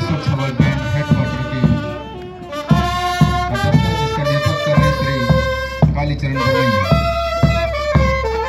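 Marching brass band playing a march: trumpets and saxophone carry the tune over a bass drum and snare drum beating about twice a second. The music dips briefly about two seconds in, then comes back fuller.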